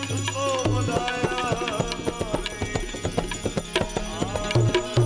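Indian devotional bhajan music: a gliding melody over a steady low drone, with quick, rhythmic hand-drum strokes throughout.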